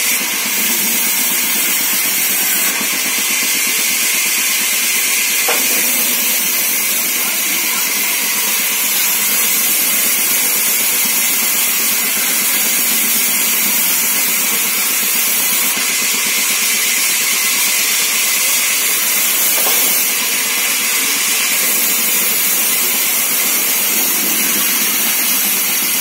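24-inch vertical band saw ripping a wooden beam lengthwise: a loud, steady, bright hiss of the blade cutting through the timber.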